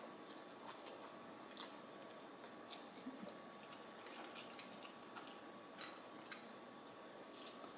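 Faint eating sounds: quiet chewing of a mouthful of ramen noodles, with a few scattered small clicks from the mouth and the chopsticks in the bowl.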